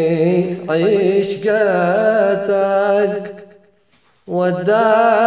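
Male voice chanting a traditional Yemeni tawshih: long, ornamented notes that waver in pitch. A brief breath pause falls near silence a little before four seconds in, then the voice returns.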